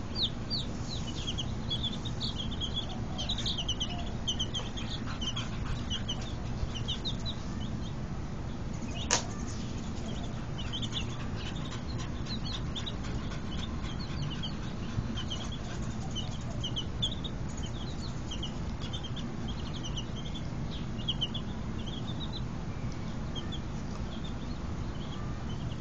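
A brood of baby chicks peeping: many short, high cheeps in quick clusters, thinning out for a few seconds in the middle. A single sharp click sounds about nine seconds in.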